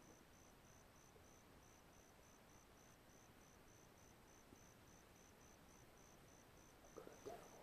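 Near silence: faint background hiss with a faint high tone pulsing about three times a second, and a few soft clicks near the end.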